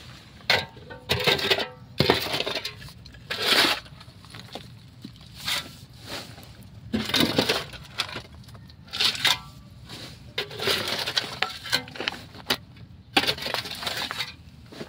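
Steel bar striking and prying at the concrete of a tomb niche, with broken concrete and rubble scraping and crumbling, in irregular bursts about every second or two.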